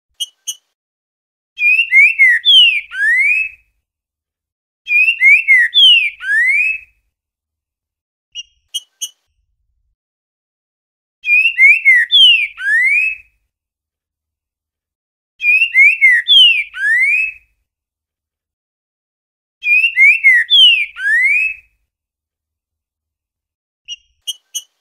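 Green-winged saltator (trinca-ferro) singing its 'boiadeiro' song: five repeats of the same phrase of rich whistled notes, each about two seconds long, with pauses between. Short double notes sound in some of the gaps.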